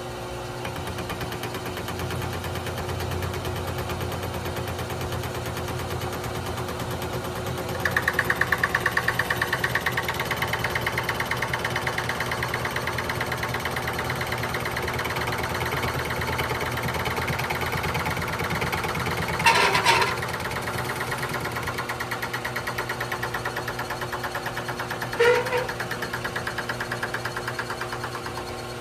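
Milling machine running with the table on power feed, its cutter spinning slowly and taking a one-thousandth-inch cut across a putter face: a steady machine hum with a fast even chatter. The cutting noise grows louder about a third of the way in as the cutter bites into the face, with two short, louder bursts later on.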